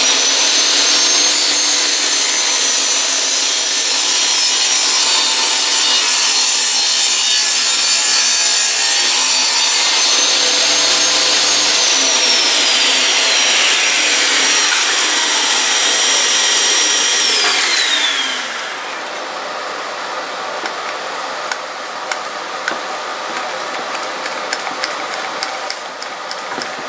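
An electric power saw runs as it cuts through wood, with a high steady motor whine. About two thirds of the way through, the whine drops in pitch and the motor winds down. A quieter rubbing with small clicks follows.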